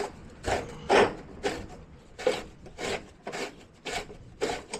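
Short rasping, rubbing strokes, about two a second and uneven, from hand work on the boiler's plastic condensate neutralizer and its fittings.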